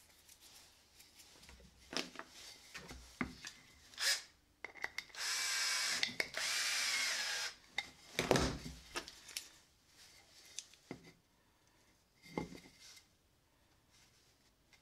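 Cordless drill running for about three seconds into a wooden block, with a short break about halfway. Before it come a few light clicks, and after it come knocks and clatter as the wooden pieces and the drill are handled.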